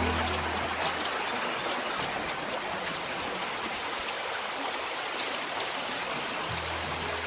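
Creek water running: a steady rush of flowing water. Low music notes fade out at the start and come back near the end.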